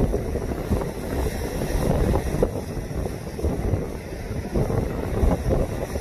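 Gusty wind buffeting the microphone over the wash of rough Lake Michigan waves breaking against the shore and marina breakwall.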